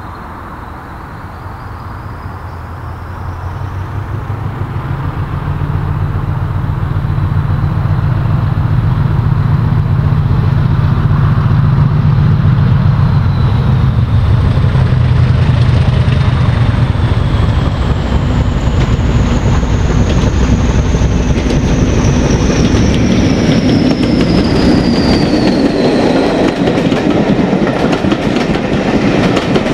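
A green BR mainline diesel locomotive approaching and passing under power. Its deep engine drone builds over the first several seconds, with a high whistle falling in pitch as it passes. After that the clickety-clack of coach wheels over the rail joints takes over.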